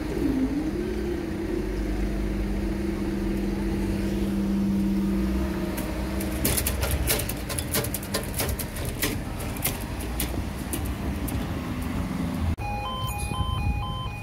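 Engine of a road-rail engineering machine running steadily as it passes along the track, with a run of sharp clicks in the middle. Near the end the level crossing's warning alarm starts, a repeating pulsing two-tone sound, as the amber lights come on.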